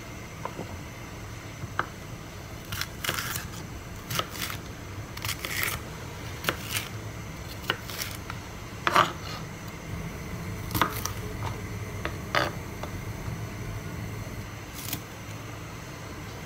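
Chef's knife slicing a green bell pepper on a plastic cutting board. Irregular sharp taps of the blade on the board and a few longer crunchy cuts through the pepper, over a low steady hum.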